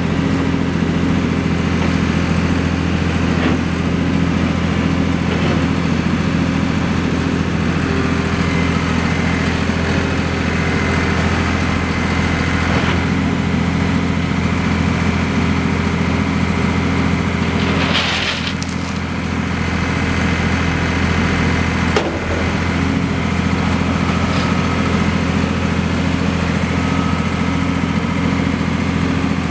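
New Holland LX885 skid steer's diesel engine idling steadily, just after starting. There is a brief hiss about eighteen seconds in and a short knock a few seconds later.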